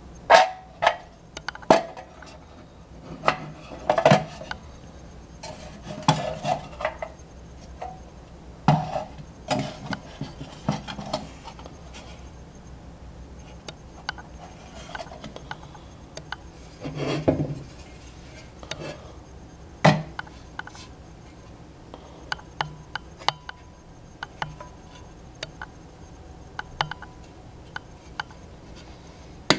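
Old sheet-metal kerosene car lamp being handled: scattered metal clicks, knocks and clinks, with stretches of scraping and rubbing in between.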